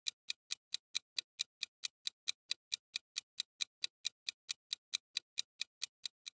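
Clock-style ticking sound effect of a quiz countdown timer, even ticks at about four to five a second, stopping just before the end.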